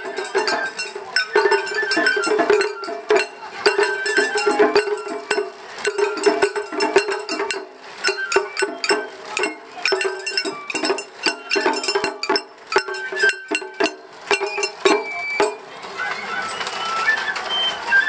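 Japanese festival float music (matsuri hayashi): drums struck in quick, dense patterns under a high bamboo flute melody. The drumming stops near the end, leaving crowd noise.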